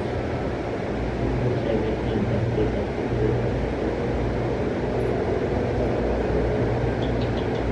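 Electric fan running close by with a steady drone.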